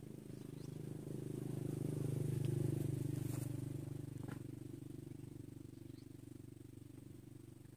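Low engine hum that swells to its loudest about two and a half seconds in and then slowly fades away.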